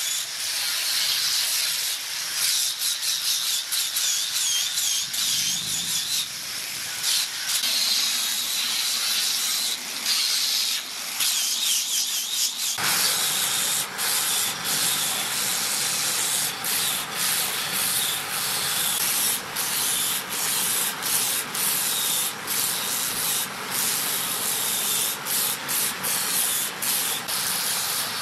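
Handheld angle grinder grinding and sanding a large wooden turning on a lathe: a high whine over a rasping hiss, briefly easing off the wood again and again. The sound takes on a fuller, lower rasp about thirteen seconds in.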